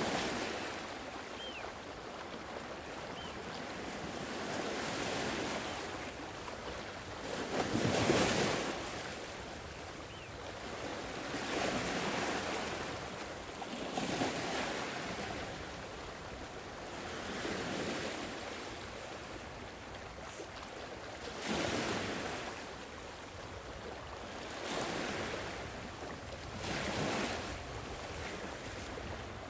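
Sea waves washing onto the shore, a steady rush that swells into a new surge every three to four seconds, the biggest about eight seconds in.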